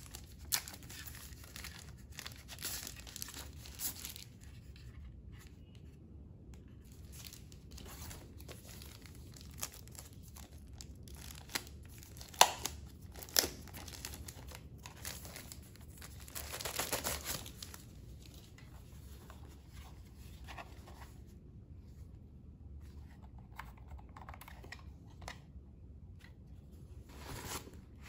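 Thin plastic wrapping bag crinkling and tearing as it is handled, in intermittent rustles with a few sharp clicks about halfway through and a longer rustle a few seconds later.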